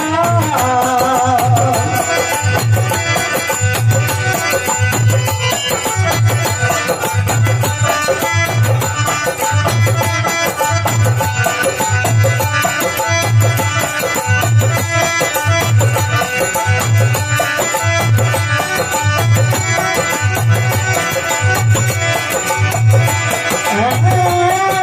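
Instrumental interlude of a Rajasthani folk devotional bhajan: a deep drum keeps an even beat about once a second under a dense instrumental accompaniment, and the sung melody comes back near the end.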